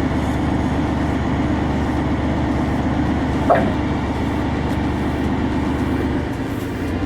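Kirovets K-701 articulated tractor's diesel engine running steadily under load, with a short high-pitched squeal about halfway through.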